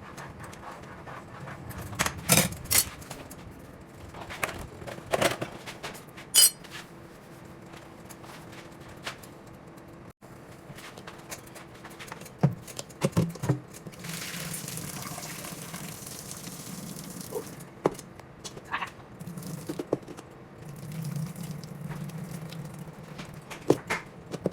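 Kitchen clatter: scattered clinks and knocks of dishes and utensils, with a few seconds of steady hiss about two-thirds of the way through.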